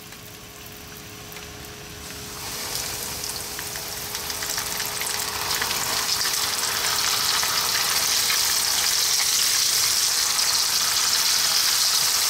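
Hot sunflower oil in a skillet sizzles faintly. About two seconds in, flour-coated whole sardines are lowered in and the oil breaks into a loud, crackling deep-fry sizzle that builds and then holds steady.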